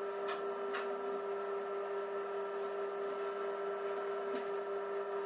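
Steady electrical hum at one pitch, with a few faint light clicks over it.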